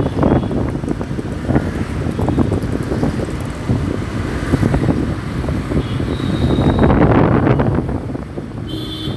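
Wind buffeting the microphone of a moving motorcycle, mixed with the rumble of engines and city road traffic. A short high tone sounds about six seconds in, and another just before the end.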